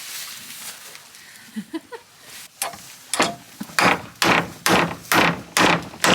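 A heavy hammer driving nails into a wooden board, a steady run of hard blows about two a second that starts about halfway through after a few light knocks.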